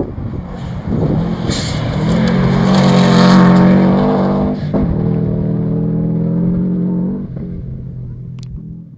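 Subaru Impreza WRX STi rally car's turbocharged flat-four held at high revs as the car comes along the gravel stage and passes close, loudest a few seconds in, with a hiss of tyres on gravel near the peak. The engine note breaks briefly about halfway, then holds steady and fades as the car goes away.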